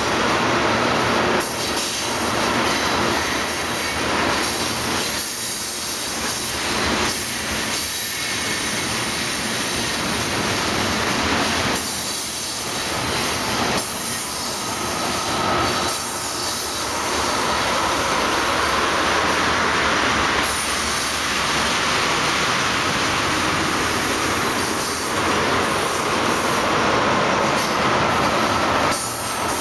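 Tank cars of a freight train rolling past on steel wheels, with a steady rumble and clacking as the wheels pass over the rails. A high wheel squeal comes in about halfway through and holds.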